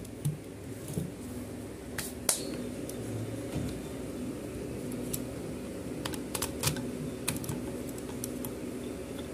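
Scattered light metallic clicks and taps of a small spanner and stand-fan motor parts being handled and fitted together, irregular and a few at a time, over a faint steady hum.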